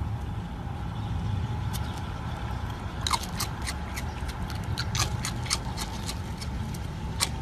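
Dry cereal loops crunching and clicking as a raccoon picks them out of a hand with its paws and eats, a quick string of sharp crisp clicks starting about three seconds in. A low steady rumble runs underneath.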